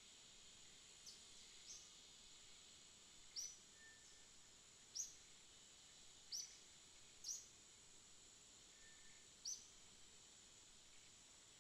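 Night rainforest ambience: a steady high insect drone, with short sharp chirps every second or two and a couple of faint low whistles.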